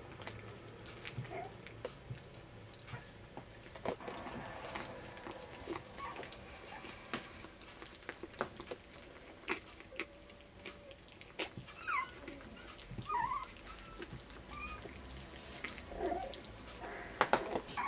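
Young French bulldog puppies giving a few short, high squeaks and whimpers in the second half, among soft clicks and rustling as they are handled and move about.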